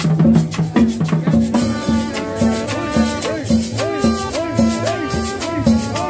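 Live cumbia band playing, with a steady beat of drums and shakers. Sustained melody lines with sliding notes come in about a second and a half in.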